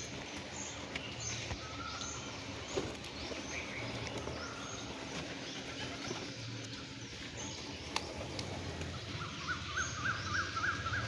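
Small birds chirping again and again with short high calls over the steady hiss of falling rain; near the end a bird gives a quick run of up-and-down notes.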